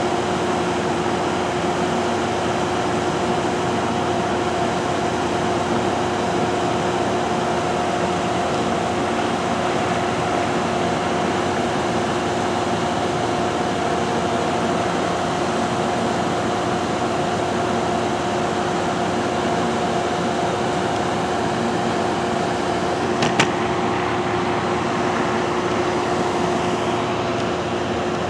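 Steady mechanical hum from a stopped Amtrak passenger train at the platform, like its air-conditioning and power equipment running, with a constant two-note drone. A single sharp click about 23 seconds in.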